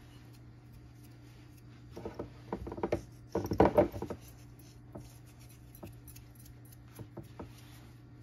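Clatter and clicks of small kitchen objects being handled off camera, building about two seconds in and loudest around three and a half to four seconds, then a few light ticks, over a steady low hum.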